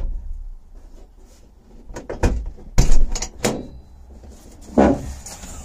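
Jeep rear hatch being hauled down by hand against very stiff heavy-duty gas struts that push it back up: a run of separate knocks and thumps from the hatch, starting about two seconds in, with one more near the end.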